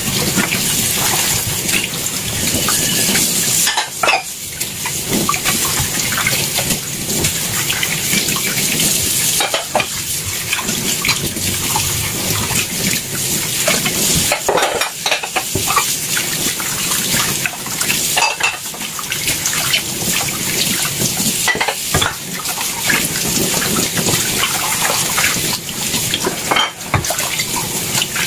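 Tap water running into a sink, with dishes and cutlery clinking now and then as they are washed.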